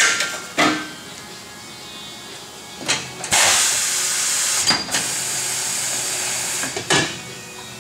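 A few metal clanks, then a steady hiss of compressed air from a pneumatic tyre changer for about three and a half seconds, with a brief break partway through, and one more clank near the end.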